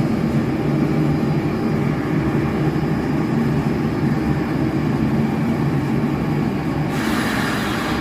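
Steady machine-room drone of running chiller plant equipment, an even hum with no let-up. A louder hiss rises over it for about a second near the end.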